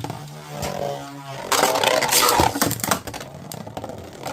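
3D-printed Beyblade tops spinning and clashing in a plastic stadium: a dense run of rapid clicks and scraping as they strike each other and the walls.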